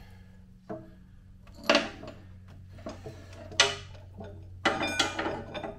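Small steel roller chain from a pugmill's chain drive clinking and rattling as it is pulled off by hand. A few separate sharp clinks come first, then a busier run of metallic rattling near the end.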